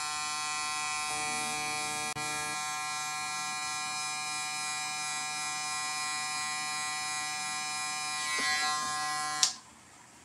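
Corded electric hair clippers buzzing steadily against the hair at the temple and ear, with a momentary dropout about two seconds in. Switched off with a click near the end.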